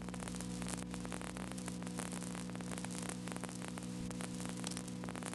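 Steady electrical hum with hiss and dense crackling static, the background noise of an old analog videotape's audio track.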